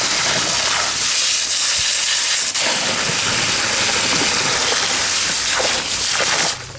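Water from a hose spray nozzle jetting steadily onto a cleaned blue crab, rinsing out its body cavity. The hiss cuts off suddenly near the end as the spray is shut off.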